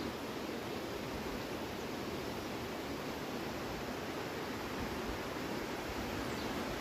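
Steady rushing of water from a stream running over rocks in a ravine below, heard as a constant even noise.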